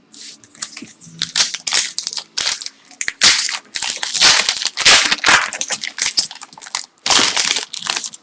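A trading card pack's wrapper being torn open and crinkled by hand: loud, irregular crackling rustles that come in quick bursts, with a short pause about seven seconds in.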